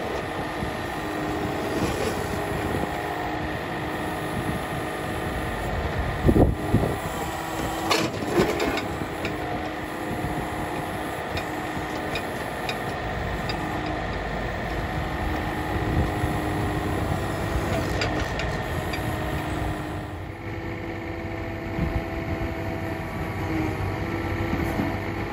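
Yanmar CBL40 backhoe's diesel engine running steadily while the hydraulic arm digs, with a few sharp knocks about six to eight seconds in as the bucket works through rocky soil.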